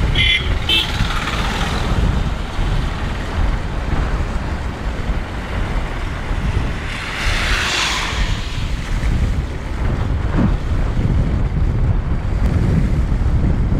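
Inside a moving vehicle on a wet road: steady low rumble of engine and tyres with wind buffeting the microphone. A short two-part horn toot sounds right at the start, and about seven seconds in an oncoming vehicle's tyres hiss past on the wet tarmac.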